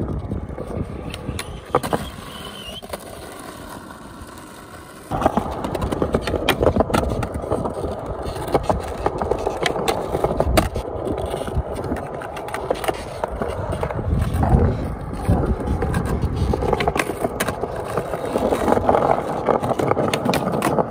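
Skateboard wheels rolling over rough, cracked concrete, with sharp clacks of the board popping and landing and the trucks grinding along a concrete ledge. It drops quieter for a few seconds, then comes back loud suddenly about five seconds in.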